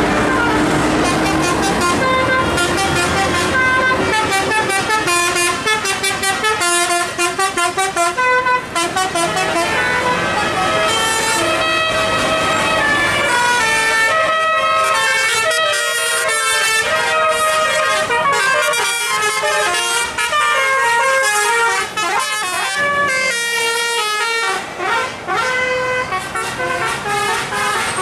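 Telolet musical air horn on a tour bus playing a rapid melody of stepped horn notes, with the passing bus's engine rumbling underneath for the first few seconds.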